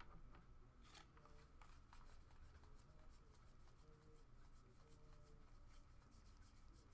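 Near silence with faint trading-card handling: soft, scattered ticks and rustles as cards are slid and flipped through a pack.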